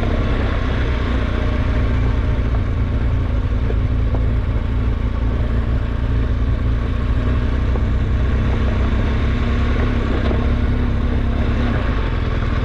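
Adventure motorcycle engine running steadily while riding a rough dirt trail, under a heavy, even low rumble.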